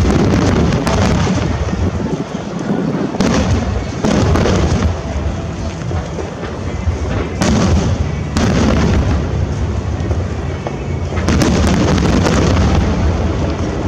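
Aerial firework shells bursting in a dense, continuous barrage of overlapping booms, with heavier volleys hitting about 3 to 4 seconds in, around 7 to 8 seconds, and again near 11 seconds.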